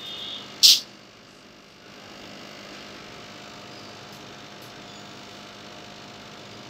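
Steady low electrical hum. It opens with a short high-pitched tone, and a brief sharp burst of noise comes just under a second in.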